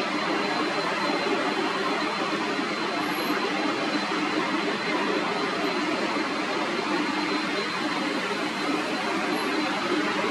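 Jet engines of an Airbus A320-family airliner on short final and flaring over the runway to land: a steady rushing noise with a thin, steady high whine.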